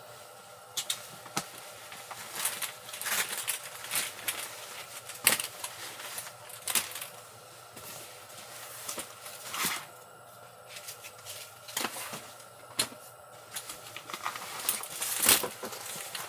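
Irregular clicks and light knocks, a few every second or two, as small hard objects are handled.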